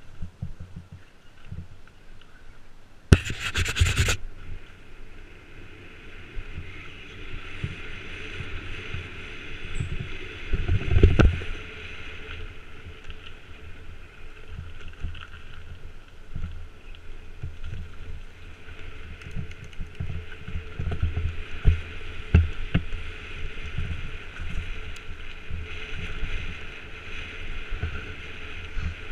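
Mountain bike descending a rough, wet dirt track at speed: tyres rumbling and the bike jolting over bumps in a run of thuds, with steady wind and rolling hiss. A loud, harsh burst about three seconds in lasts about a second, and a heavy jolt comes around eleven seconds.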